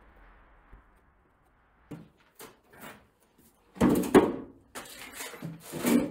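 A run of knocks and thumps from something being handled and set down in a small room. The heaviest come about four seconds in and again at the end.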